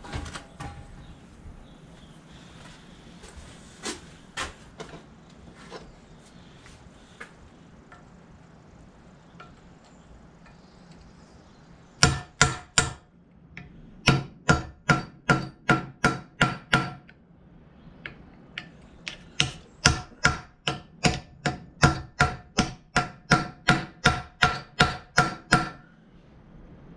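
Hammer striking a steel punch held against the slotted bush of a 1955 Fordson Major tractor's clutch pedal, clamped in a vise, to drive the tight bush out. Sharp, ringing metal-on-metal blows: a few scattered taps at first, then from about halfway through fast runs of about three blows a second, broken by a short pause.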